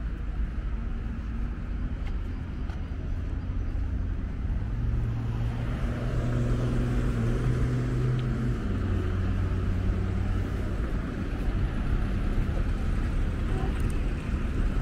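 Street traffic: a steady low rumble of road noise with a passing car's engine hum that grows about a third of the way in and drops in pitch a little past halfway.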